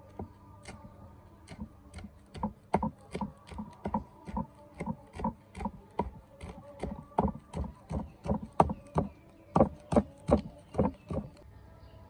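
Steel cleaver chopping on a thick wooden chopping block, mincing herbs into snail meat: a steady run of chops about two to three a second that stops about a second before the end.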